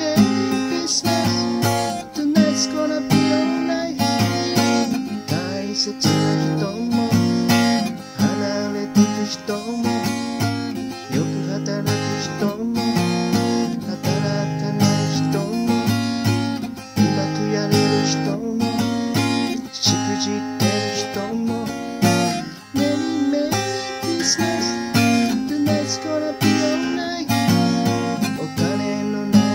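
Acoustic guitar strummed in a steady rhythm with the chords changing every second or two, played solo without singing.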